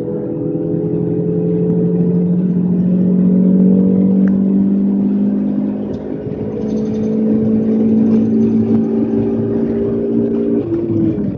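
Alfa Romeo 156 engine pulling under load at track speed, heard from inside the cabin. The note climbs slowly, dips about six seconds in and shifts again near the end.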